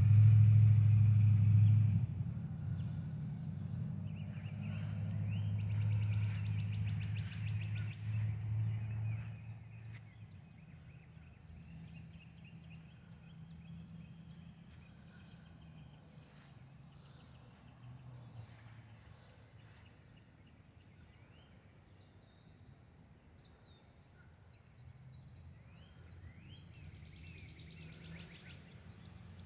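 Rolling thunder: a low rumble that starts suddenly, is loudest in the first two seconds, swells again and fades out about ten seconds in. Birds chirp over it and through the quieter rest.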